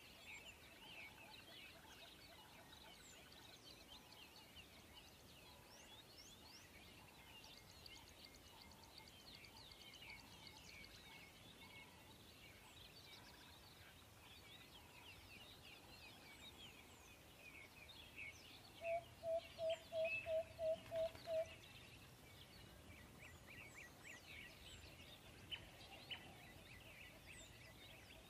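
Faint chorus of small birds chirping continuously. About two-thirds of the way through, a quick run of about eight louder, evenly spaced notes stands out.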